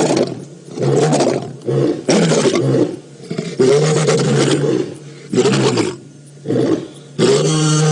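Male lion roaring: a series of long roars and shorter grunting calls, about one a second.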